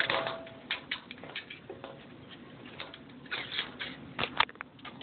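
Hands handling a homemade 2 m Yagi antenna with steel tape-measure elements on a PVC boom: scattered small clicks and rustles, with a run of louder clicks near the end.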